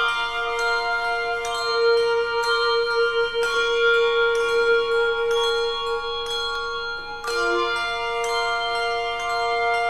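Handbell choir playing a slow piece: chords of handbells struck every second or so, each left ringing into the next.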